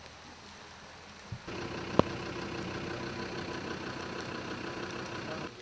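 A parked vehicle's engine idling steadily. It comes in abruptly about a second and a half in and cuts off just before the end, with a single sharp click shortly after it begins.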